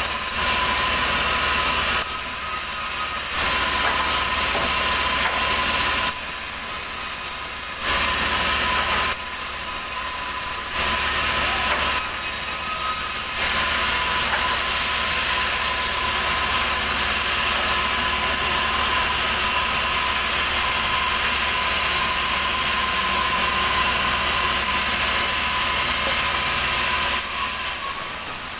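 Sawmill band saw running and cutting lengthwise through a large, heavy ulin (Borneo ironwood) log, a steady whine over the mill's machine noise. It drops off near the end as the cut finishes.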